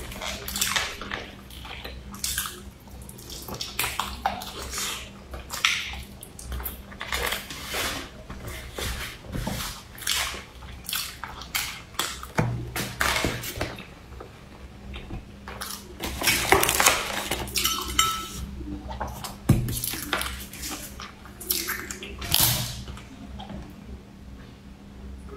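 Close-miked eating sounds: wet chewing and lip smacks on sticky rice, with a metal spoon clicking and scraping against a foam food box. The clicks and smacks come irregularly and are loudest about two-thirds of the way through. Near the end come gulps of drink from a bottle.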